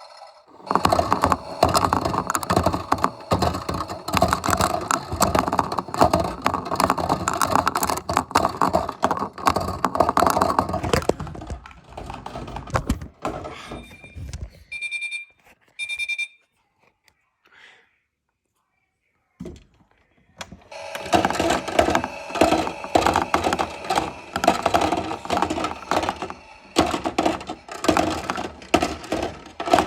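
Washing machine clattering rapidly as it runs. It stops, two short electronic beeps sound, and after a few seconds of quiet the clattering starts again.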